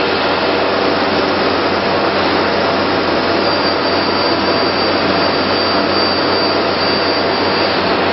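Steady loud rushing noise of a running woodworking CNC machining centre and its dust extraction. A faint high whine sits on top from about three and a half seconds in until near the end.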